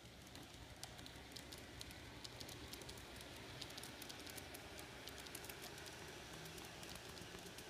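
Faint, irregular ticking and clicking of a 1:29 scale model train's wheels running over garden-railway track, over a low steady rumble.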